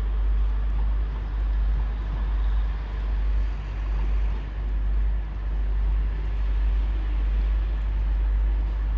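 Wind rumbling on the microphone, a steady low buffeting that swells and eases every second or so, over a faint even background hiss.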